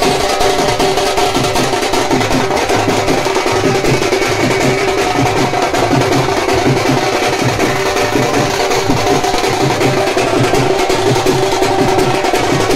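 Dhol drums beaten loud in a fast, dense dance rhythm, with a few steady held tones over the drumming.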